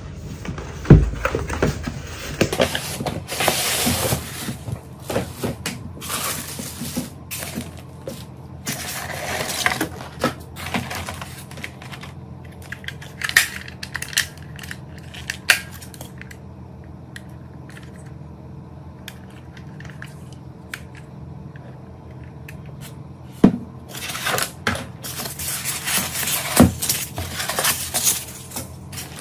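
Unboxing handling noise: a cardboard box being opened and styrofoam packing inserts and plastic-wrapped parts being lifted and moved, giving rustling and scraping with sharp knocks and clicks. There is a quieter stretch in the middle, and a faint steady hum underneath.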